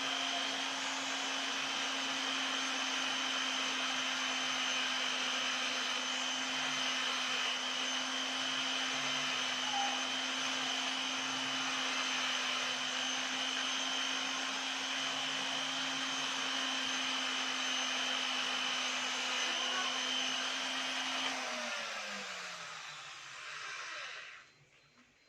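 Small electric motor-driven tool running at a steady speed. Near the end it is switched off and spins down, its pitch falling over about two seconds.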